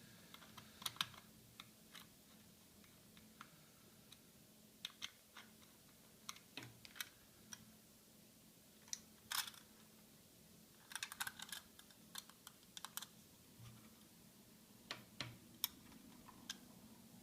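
Irregular small metal clicks and taps of a magnetic screwdriver and tiny screws as brackets are screwed onto a 2.5-inch SSD, with several quick clusters of clicks.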